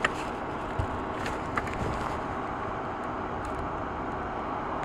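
Steady outdoor rushing noise, with a few faint clicks near the start and around a second and a half in.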